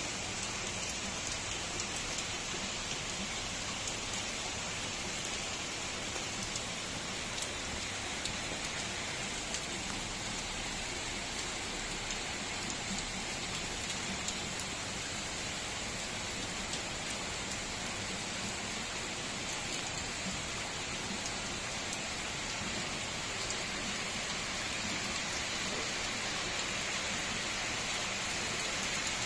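Steady rain falling: a dense, even hiss with scattered sharp drop ticks, growing slightly louder near the end.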